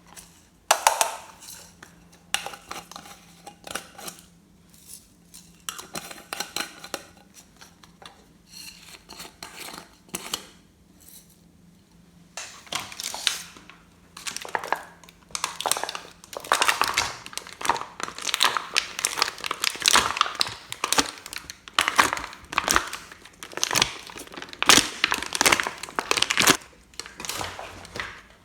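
Slime being squeezed, pressed and stretched by hand, giving irregular crackling and squishing noises, sparse at first and denser and louder from about halfway through.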